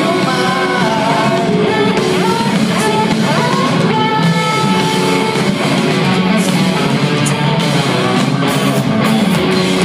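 A rock band playing loudly live, with distorted electric guitars to the fore, in the closing stretch of a song.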